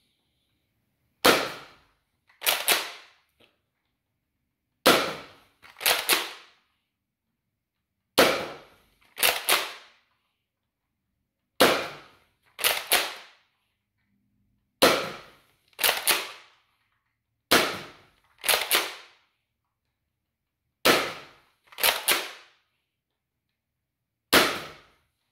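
Nerf Rival Roundhouse spring-powered blaster, with its stock spring, being fired and worked over and over. There are eight sharp snaps about three seconds apart, and each is followed about a second later by a quick double clack.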